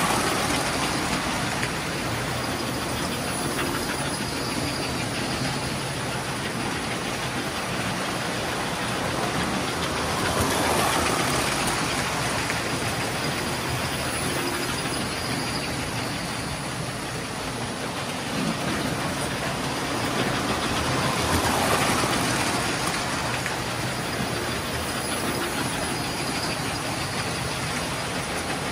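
Several electric model trains running at once on a layout: a steady clatter of wheels on track with motor hum, swelling louder as a train passes close by at the start, about 11 seconds in and again about 22 seconds in.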